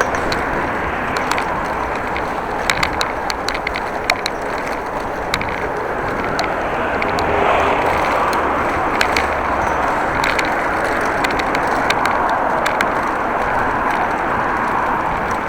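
Steady rolling and rushing noise of a bicycle ride, with scattered sharp clicks and rattles. The noise swells for a couple of seconds about halfway through.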